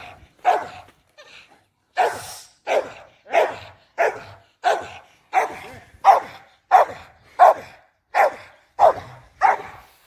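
A dog barking over and over: one bark, a short pause, then a steady run of barks at about three every two seconds.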